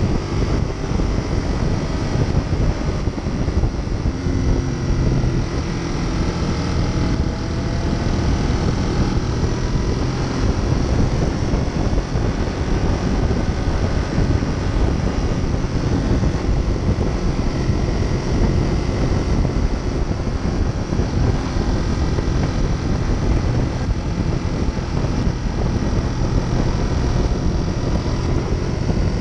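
Steady wind rush on the microphone from a motorcycle cruising at road speed, with a Ducati Monster 821's 821 cc L-twin engine running underneath. Faint rising engine notes come through a few seconds in.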